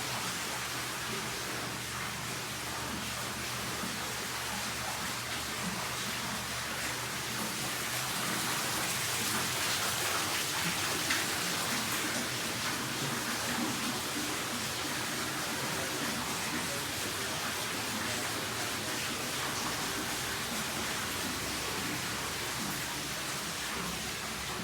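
Steady splash of falling water in a bathroom, a little louder about a third of the way in.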